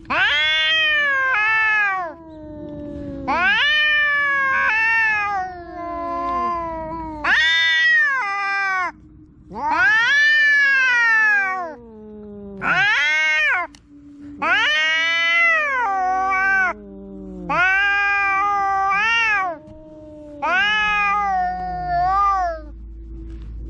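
A cat meowing loudly and insistently: long, drawn-out calls that rise and fall in pitch, about one every two seconds.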